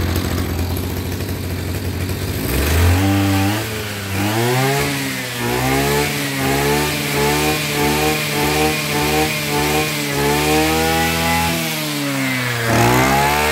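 Tanaka TBC-270 brush cutter's 27cc two-stroke engine idling, then revved up about three seconds in and held at high revs that waver up and down, dropping back briefly near the end before revving again. It runs smoothly, as the owner describes it.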